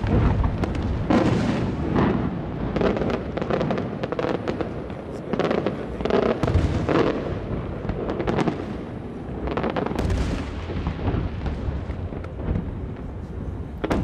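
Aerial firework shells bursting in the sky: a steady string of booms and bangs, one after another, with the sound of each rolling on into the next.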